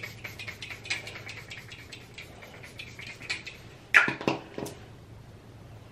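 Small irregular taps and clicks of skincare being applied: a product container handled and the product patted onto the face, with a louder cluster of sharp clicks about four seconds in.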